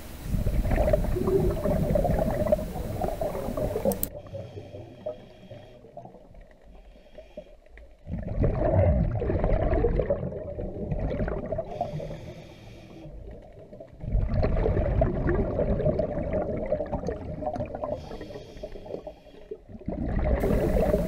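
Scuba diver breathing through a regulator underwater: loud burbling exhaled bubbles that alternate with quieter inhales hissing through the demand valve, about three breaths.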